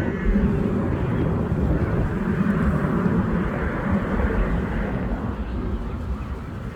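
Jet airliner's engines rumbling as it departs and climbs away, the sound slowly fading.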